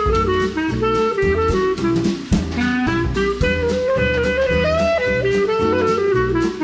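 Background instrumental music with a steady drum beat and a melodic lead line.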